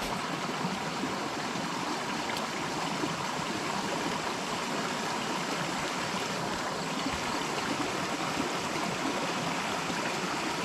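Shallow stream rushing steadily over rocks and a muddy trail bed.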